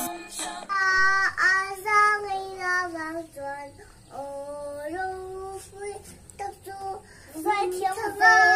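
A little girl singing a melody unaccompanied, her notes held and sliding between pitches, with a loud long held note near the end.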